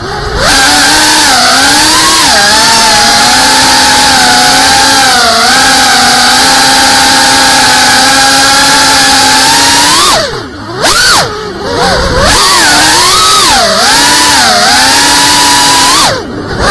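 GEPRC FPV quadcopter's brushless motors and propellers whining, heard close through the onboard camera's microphone. The pitch rises and falls with throttle, with the sound dropping away briefly twice about ten seconds in and once near the end as the throttle is cut.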